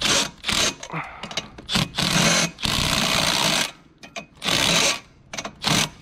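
Milwaukee M12 cordless impact driver hammering a socket onto the bolt of a mast clamp, tightening it onto a metal service mast. It runs in several short bursts with brief pauses, the longest lasting about a second.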